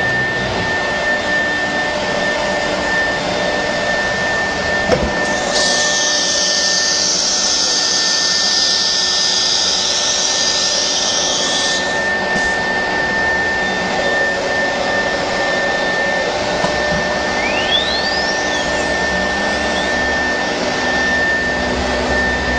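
CNC router with an automatic tool changer running, its spindle giving a steady high whine over machine noise. About five seconds in there is a click, followed by a loud hiss of air lasting several seconds, as happens during a tool change. Later a short rising whine comes as the spindle speeds up.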